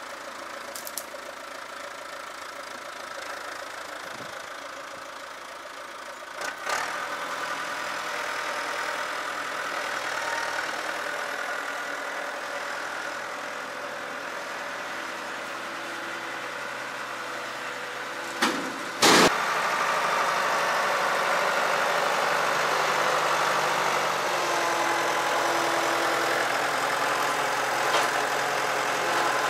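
An engine idling steadily. About nineteen seconds in there is a sharp knock, and the engine sound is louder after it.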